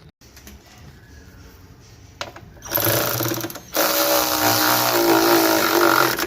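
Handheld power tool, such as a cordless drill/driver, run in two bursts: about a second, then a short stop and about two and a half seconds more. It is being used to drive fasteners while a fuel filler neck is installed.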